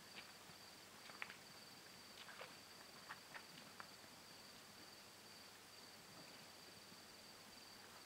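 Crickets trilling: a faint, steady high-pitched trill, with a few soft clicks in the first few seconds.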